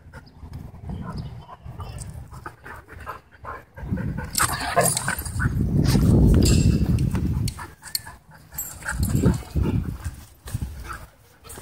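Dogs wrestling and playing tug-of-war, with dog vocalisations and scuffling on dirt and grass, loudest for a few seconds in the middle.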